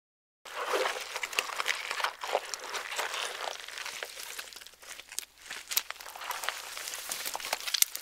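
Donkey grazing in snow: irregular crunching and crackling as it roots through the snow and crops dry grass, with many sharp clicks. It starts abruptly about half a second in, eases off briefly in the middle, then grows busy again.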